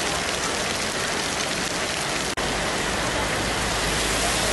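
Heavy rain pouring onto a wet tarmac road, a steady dense hiss. It is broken once, a little past halfway, by a brief dropout.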